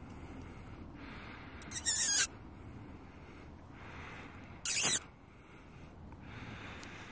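Two short, loud yelps about three seconds apart, the second falling steeply in pitch: a puppy yapping.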